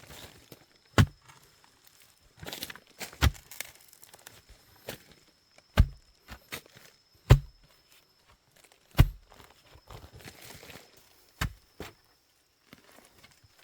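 A series of sharp knocks and thuds at an uneven pace, about one every one to two seconds, with light rustling between them; the strike a little past halfway is the loudest.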